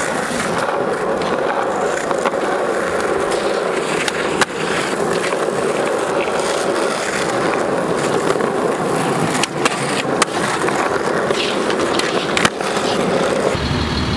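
Skateboard wheels rolling over concrete with a steady rumble, broken by a few sharp clacks of the board. Near the end it cuts to a motorhome's engine idling.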